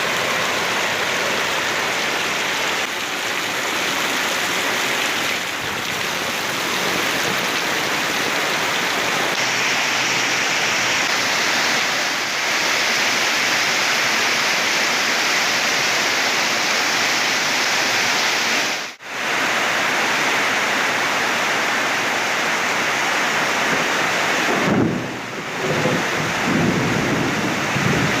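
Heavy rain pouring steadily. The sound drops out abruptly for a moment about two-thirds of the way through, and a low, uneven rumble comes in near the end.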